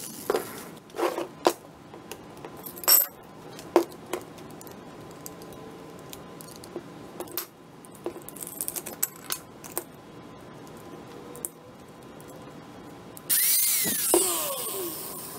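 Scattered metallic clicks and clinks as an angle grinder is handled and its wheel changed, with a spanner wrench on the bench. About 13 seconds in the angle grinder starts suddenly and runs with a loud whir, its pitch falling.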